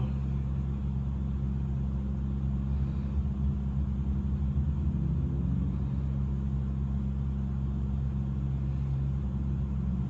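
Steady low machine hum with several steady low tones under it, even in level throughout.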